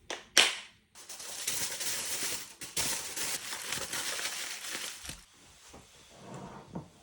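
Crinkly plastic snack packaging being handled and rustled for about four seconds, then stopping.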